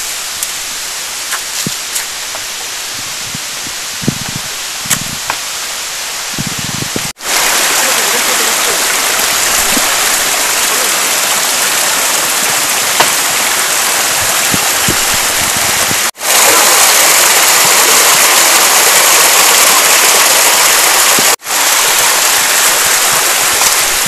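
Rushing water of a small forest waterfall and its rocky stream, a steady hiss that jumps louder about seven seconds in and again near the two-thirds mark, with abrupt breaks between shots. A few light clicks and knocks sound in the first seconds.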